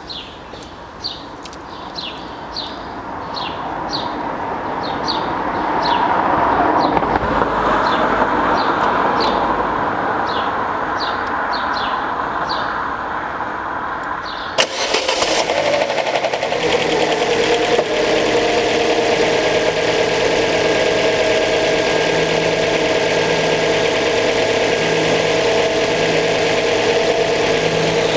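Chevrolet Aveo's 1.4-litre F14D4 Ecotec four-cylinder engine cold-starting about halfway through, then settling into a steady idle. It knocks on the cold start, which the owner suspects comes from the cam phasers. Before the start there is a background hiss with repeated high chirps.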